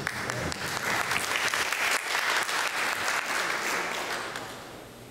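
A small audience applauding; the clapping builds, then dies away near the end.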